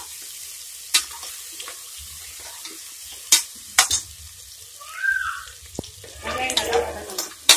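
Chopped onions frying in oil in an aluminium pressure cooker, with a steady sizzle. A metal spoon stirs them and knocks sharply against the pot a few times, the last knock near the end.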